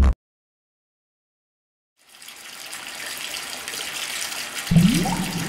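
After about two seconds of silence, churning, bubbling water fades in as a rushing hiss. Near the end comes a louder burst of rising gurgles.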